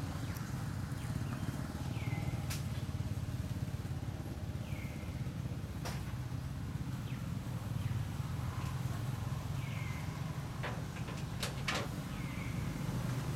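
A steady low rumble of background noise. A short, high call falls in pitch and repeats every few seconds. A few sharp clicks fall in the second half.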